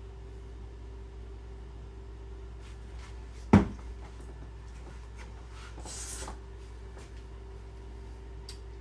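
A single sharp knock about three and a half seconds in, like a hard object set down or a door shutting. A brief soft rustle or scrape follows around six seconds, over a faint steady hum.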